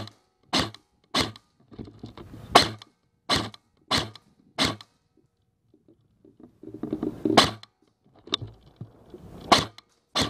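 Airsoft gun firing single shots, about eight sharp cracks spaced unevenly, with a pause of a second or two in the middle.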